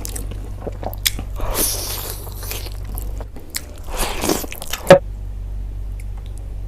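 Close-miked biting and crunching into crisp food, irregular crunches ending in a sharp loud snap about five seconds in, over a steady low hum.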